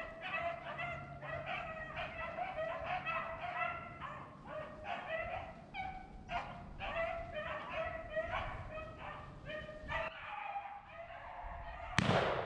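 A pack of beagles baying as they run a rabbit: many short, overlapping calls that thin out about ten seconds in. Wind noise on the microphone underneath, and a short, sharp burst of noise just before the end.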